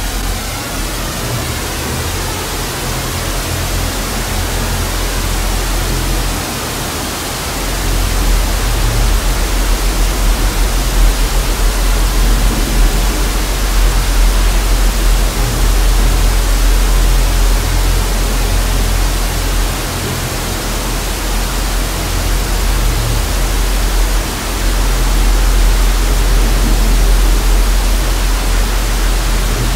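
Steady hiss of TV static over a deep low rumble. The rumble swells louder about eight seconds in, eases around twenty seconds and swells again near twenty-five.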